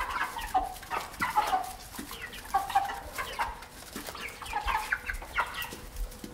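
A brood of baby chicks peeping: many short, falling chirps overlapping several times a second.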